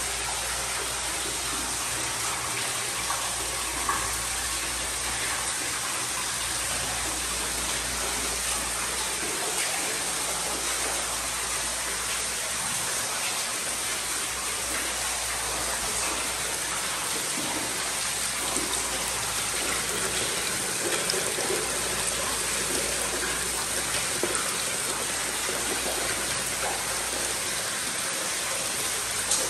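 Steady, even rushing noise with no breaks, of the kind running water makes.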